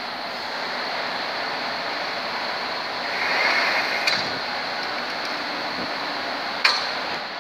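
Scored sheet glass snapping along its cut lines on a glass cutting table: a sharp snap about four seconds in and a louder one near the end, over a steady rushing noise.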